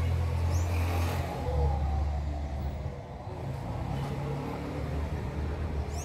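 A motor vehicle's engine running with a steady low hum that shifts in pitch about a second and a half in. A short, high bird chirp comes about half a second in and another near the end.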